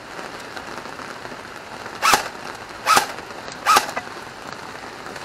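Three shots from a shooting-gallery air rifle, fired in quick succession a little under a second apart, each a sharp crack with a brief ring.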